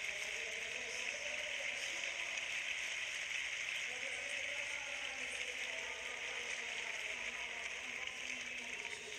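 Large indoor arena audience applauding, a steady dense patter of clapping that eases slightly near the end.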